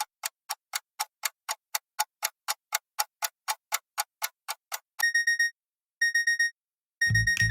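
Clock sound effect: a clock ticking about four times a second for five seconds, then an alarm clock going off in three short bursts of rapid high electronic beeps, about a second apart.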